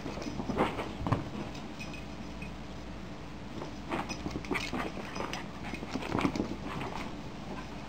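Small Chuggle puppy (a chihuahua–pug–beagle mix) scampering and scrabbling about the room: an irregular patter of paw scuffles and soft thumps, coming in two flurries, one about a second in and a longer one from about four to six and a half seconds in.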